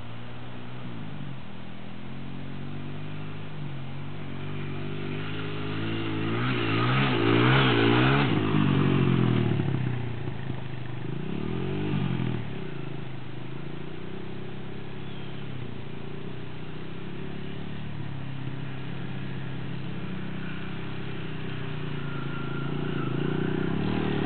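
Dirt bike engine revving up and down as it is ridden on the trail, loudest for a few seconds about a quarter of the way in, with another brief rise and fall near the middle. It then runs steadily and grows louder near the end as the bike approaches.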